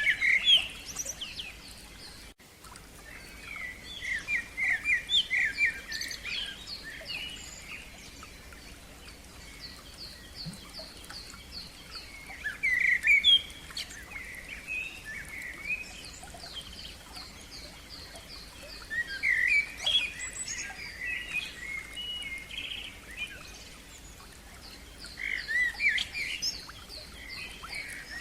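Songbirds singing outdoors: loud, warbling phrases come every several seconds, and between them runs of quick repeated high notes.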